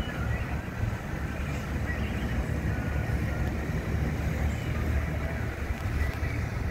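Outboard engines of a Monterey sport boat running as it cruises past at low speed, a steady low drone.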